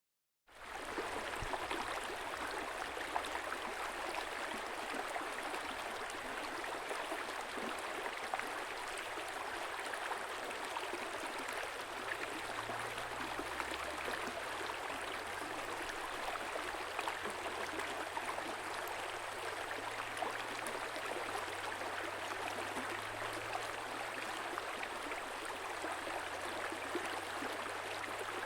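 Stream water flowing and gurgling, a steady rushing babble that sets in about half a second in and holds even throughout.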